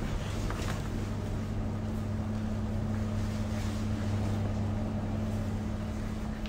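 Steady low mechanical hum with an even rushing of air, the sound of room ventilation or air conditioning running.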